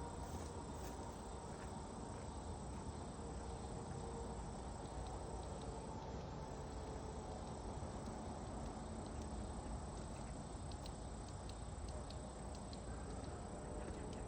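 Steady outdoor background: a low rumble under a constant high-pitched whine, with a few faint ticks.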